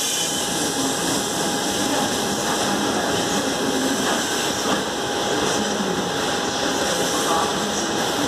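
Open freight wagons of a long freight train rolling past on the nearest track: a steady rolling noise of steel wheels on rail, with a thin steady whine over it.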